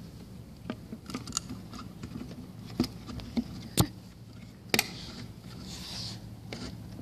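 Plastic leg parts of a Halloween animatronic jumping spider being worked into their slots in the module. Scattered small clicks and knocks, with two louder clicks about four and five seconds in, over a low steady hum.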